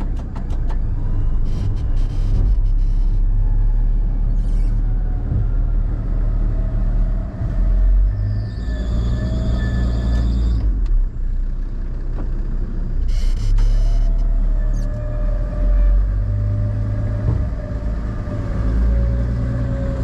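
A four-wheel drive's engine running under load, heard from inside the cab, as the bogged vehicle is winched forward, with a steady whine over the rumble. A high-pitched squeal cuts in briefly twice, about eight and thirteen seconds in.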